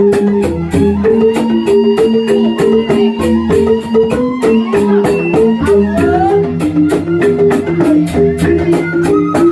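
Balinese rindik gamelan music: bamboo xylophones playing a fast interlocking melody over a steady beat of sharp percussion strokes.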